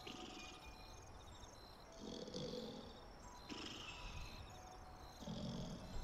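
Faint, slow sleeping breaths with a low rumble, going in and out in a steady cycle that repeats about every three and a half seconds.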